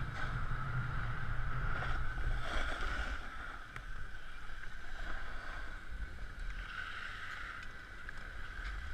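Snowboard sliding over packed snow, with wind buffeting the camera's microphone. The rumble drops away about three seconds in as the board slows to a crawl.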